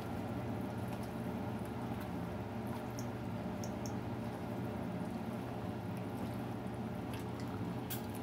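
Ladle stirring through a thick beef, pasta and vegetable soup in a skillet: soft liquid squishing with a few light clicks of the ladle against the pan, mostly around the middle and near the end, over a steady low hum.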